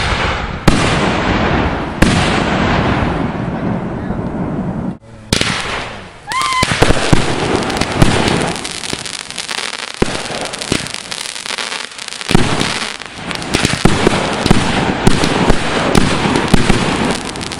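Consumer fireworks going off: a few loud single bangs in the first seconds, then, from about six seconds in, a short whistle followed by a dense, rapid run of crackling reports and pops.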